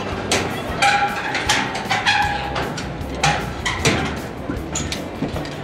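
Indistinct, high-pitched voices calling out in short snatches over a steady low rumble, with a few sharp clicks.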